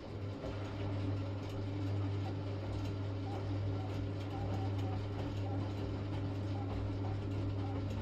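V-Zug Adora 4 washing machine from the early 1970s running: a steady electric motor hum that comes on at the start and stops about eight seconds later, with light ticking over it.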